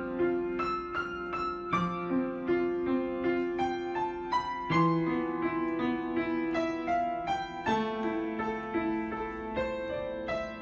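Gentle piano music: a melody of notes struck a few times a second over a low held note that changes every two to three seconds.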